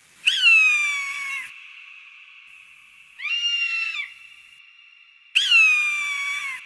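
Falcon calling three times: two long, loud calls that start high and slide down in pitch, with a shorter call rising and falling between them.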